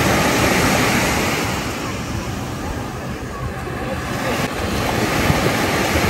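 Small Black Sea waves breaking and washing up the sand at the water's edge, swelling about a second in and again near the end.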